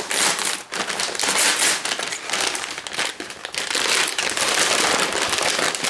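Packaging being handled and opened by hand: continuous loud crinkling and crackling.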